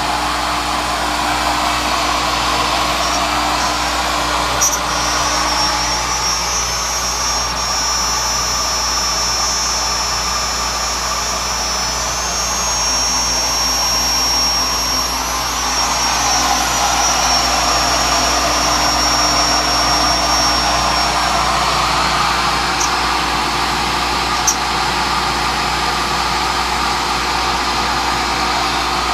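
CNC milling machine running, its end mill cutting 1/8-inch 6061 aluminium plate with a steady whirring noise. A thin high-pitched whine from the cut comes in about five seconds in and fades out around twenty seconds, with a couple of sharp ticks along the way.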